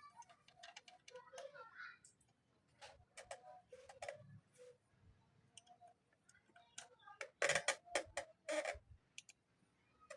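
Scattered light clicks and knocks of chainsaw parts and tools being handled during assembly, with a run of louder sharp clacks about three-quarters of the way through.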